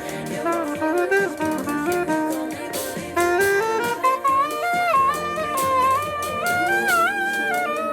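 A small jazz band playing live during a sound check, with a saxophone carrying a stepping melody over the other instruments and repeated cymbal or drum hits.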